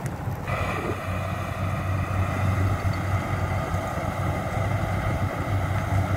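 Kubota rice combine harvesters running while cutting a field: a steady engine drone with a constant high whine from the machinery, which comes in abruptly about half a second in.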